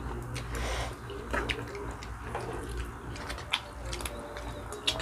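Wet eating sounds of chewing and sucking on adobo chicken feet, with scattered small clicks and smacks.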